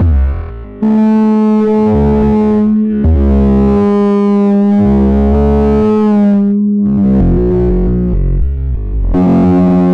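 Music with long held, distorted notes over a low pulsing bass, with a short break just under a second in.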